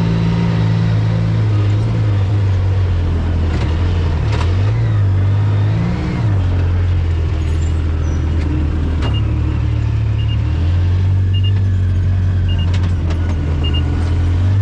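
Side-by-side UTV engine running steadily at road speed. Its pitch dips and climbs back a few seconds in as the throttle eases and picks up again. From about halfway, a short high double beep repeats roughly once a second.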